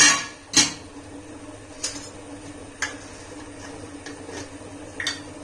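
Kitchen utensils and vessels clinking while ingredients go into the pan: five sharp knocks spread unevenly, the first two loudest, the first ringing briefly, over a steady faint low hum.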